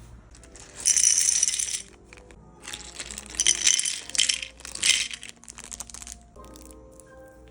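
Small hard board-game pieces rattling and clattering, shaken in three loud bursts. Near the end a few steady musical notes come in.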